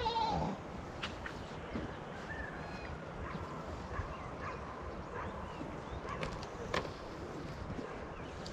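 Sheep or goat bleat ending about half a second in, then faint scattered chirps and a few sharp clicks over steady background noise.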